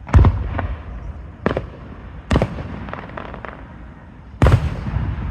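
Aerial fireworks shells bursting: four loud booms a second or two apart, each trailed by a rolling echo, with lighter pops in between.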